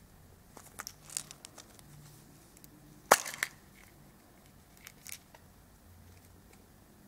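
Orange plastic surprise-egg toy capsule being twisted and popped open by hand: scattered light plastic clicks, with one sharp snap about three seconds in as the halves come apart.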